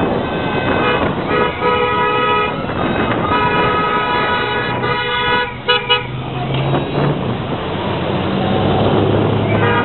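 Vehicle horns sounding as a parade of Honda Gold Wing motorcycles and cars goes by: a long blast about a second in, a second long blast from about three seconds in, then two short toots, over the steady running of the passing engines.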